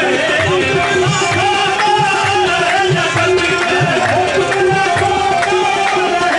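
Qawwali music: a steady held drone under a wavering sung line, with tabla strokes about twice a second.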